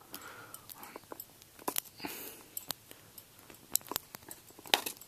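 Irregular small clicks and light rustling from fingers working tiny orthodontic rubber bands around a piece of plastic cutlery, close to the microphone.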